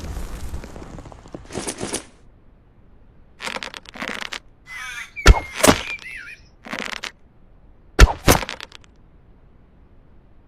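Bow-and-arrow sound effects: a run of short, sharp cracks and thunks, the loudest coming in pairs about a third of a second apart (string snap, then hit). A brief wavering creak comes just before the first loud pair. A booming effect dies away at the start.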